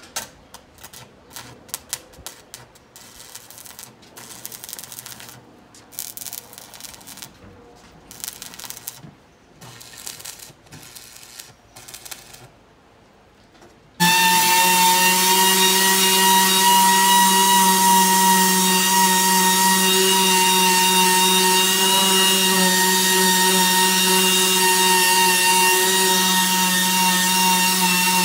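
Scattered short crackles and clicks, then from about halfway a hand-held power grinder running with a steady, loud whine as it grinds down a fiberglass (FRP) part for repair.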